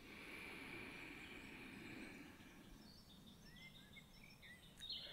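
Very faint background ambience, a soft steady hiss with a few small bird-like chirps in the second half.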